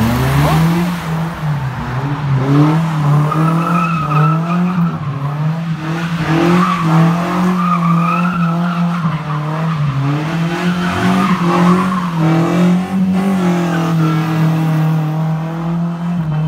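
A car engine revved hard, its pitch rising and falling over and over, with tyres squealing as the car drifts.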